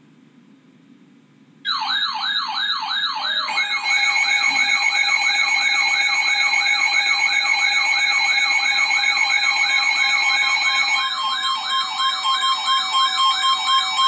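Weather-radio alert for a Severe Thunderstorm Warning: a rapidly warbling electronic siren tone starts abruptly about two seconds in over faint radio hiss. Steady tones join it, and near the end a steady warning tone near 1 kHz sounds with the warble.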